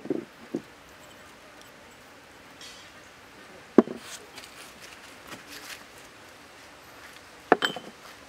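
Sharp knocks on a wooden mortar and plank table, three of them about four seconds apart, each followed by a few lighter clicks. Between the second and third knocks there is a light patter of dry granules.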